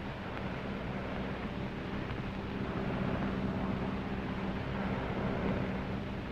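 Propeller airliner's engines droning steadily in flight: a constant low hum of several tones with a hiss over it.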